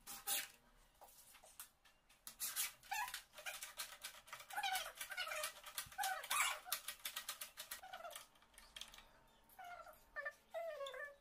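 Repeated clicks and clacks of a mortise lock's latch, knob and thumb-turn being worked by hand, with an animal's short calls repeating among them.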